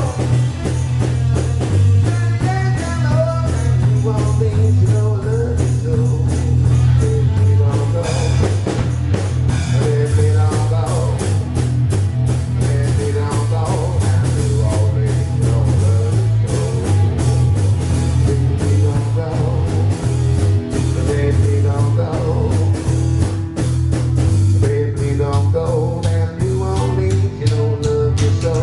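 Blues-rock band playing: guitar over a driving bass line and drums, keeping a steady groove.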